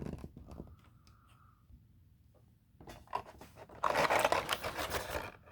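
Stiff plastic accessory tray and packaging handled and pulled out of a box, with small clicks at first, then loud crinkling and scraping from about three seconds in.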